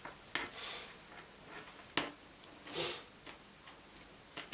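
Hands handling packaging: a few scattered light clicks and taps, with a short rustle a little before the three-second mark.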